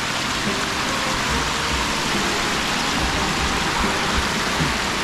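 Shallow spring water rushing over rocks and down a small cascade, a steady splashing rush.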